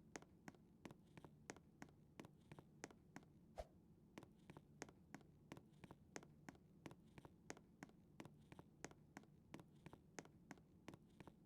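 Faint, quick clicks or taps, several a second and unevenly spaced, over a low steady hum.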